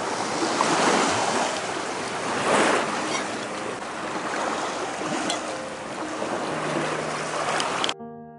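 Small waves washing against a concrete breakwater, with wind on the microphone; the wash swells and eases every second or two. Near the end the outdoor sound cuts off abruptly and piano music takes over.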